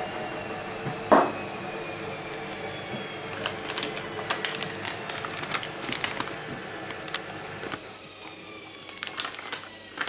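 Kitchen utensils clicking and tapping against dishware, a run of quick, irregular clicks from about three and a half seconds in, over a steady background hum. A single short, louder sound comes about a second in.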